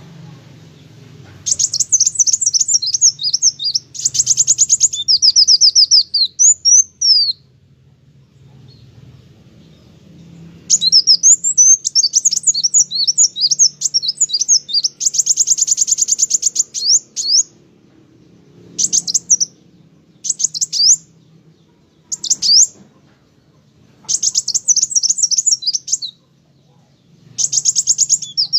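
Kolibri wulung sunbird singing hard: rapid, high-pitched twittering and trilled phrases in bursts of several seconds. Some short single notes come between the longer bursts.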